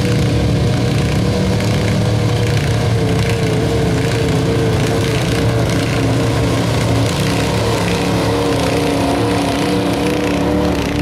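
Gasoline engine of a 1986 Ford F-350 pickup running hard and steady under load as it drags a weight-transfer sled in a stock gas truck pull.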